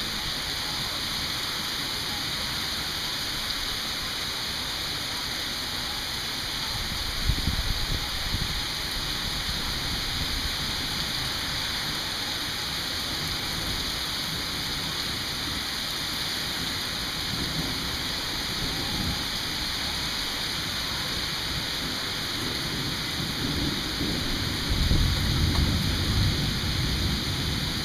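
Steady rain hissing, with thunder rumbling twice: briefly about seven seconds in, and louder near the end.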